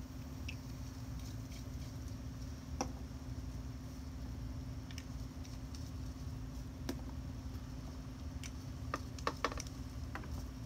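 Small plastic alcohol ink bottles being capped and set down on a cutting mat: scattered light clicks and taps, several close together near the end, over a steady low background hum.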